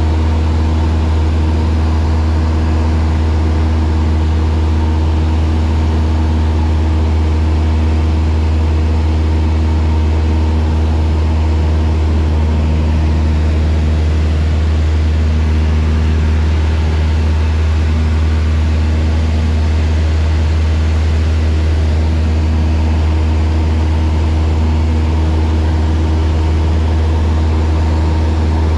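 Single-engine Cessna light aircraft's engine and propeller heard from inside the cabin in flight: a loud, steady drone with a deep hum and a few steady tones above it, holding an even power setting.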